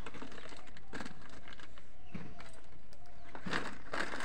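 Woven plastic sack rustling and crinkling in short bursts as it is handled, over a steady background hiss.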